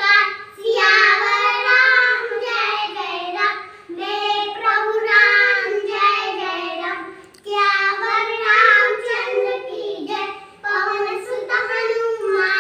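A child's voice singing a devotional prayer before a home shrine, line after line, each line about three to four seconds long with a short breath between.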